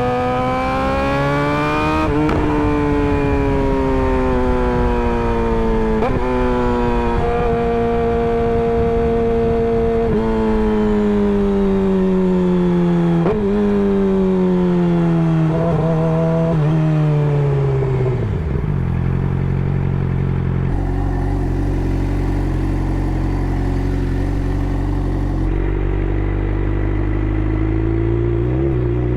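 Suzuki GSX-R600 inline-four through an M4 GP slip-on exhaust: revs climb briefly, then fall away under engine braking as it downshifts about every three to four seconds, each shift marked by a short throttle blip. It settles to a steady idle a little past halfway, and the revs start to rise again near the end.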